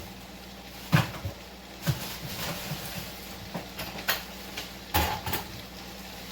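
Kitchen clean-up clatter: things being put away, with about five separate sharp knocks and clacks of containers, dishes and cupboard doors spread through the few seconds.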